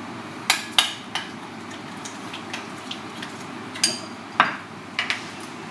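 Metal spoon clinking against a glass bowl of sauce as it is stirred: a couple of sharp clinks about half a second in, then several more around four to five seconds in, over a steady low hum.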